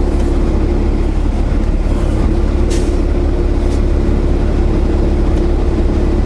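Semi truck's diesel engine running steadily, heard from inside the cab, with a deep rumble and a steady hum. Two short hisses of air cut in, a little under three seconds and again about a second later.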